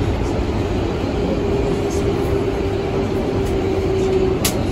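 Kawasaki R142A subway car under way, heard from on board: steady running noise with a whine at a nearly level pitch that slowly sags a little, and one sharp click near the end.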